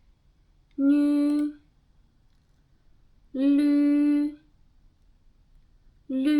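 A woman's voice pronouncing single drawn-out Mandarin syllables at a steady, level pitch, three times, with pauses of about two seconds between them.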